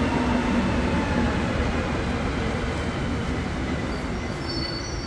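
Montréal Métro Azur (MPM-10) train pulling into the station on its rubber tyres: steady rolling noise with a faint motor whine, fading slightly as it slows. A thin high squeal sets in about four seconds in as it brakes.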